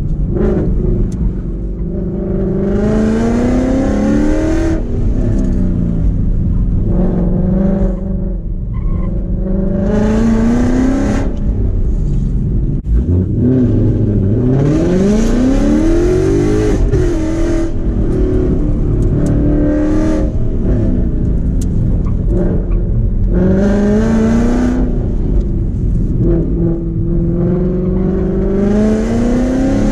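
Modified Ford Mustang GT V8 with long-tube headers, X-pipe and Borla ATAK mufflers, heard from inside the cabin while running an autocross course. The engine pitch climbs hard again and again for a couple of seconds at a time, dropping in between as the throttle is lifted for braking and turns.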